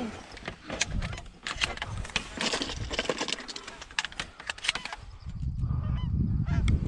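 Clicks and rustling as gear and shotgun shells are handled, with geese honking faintly near the end.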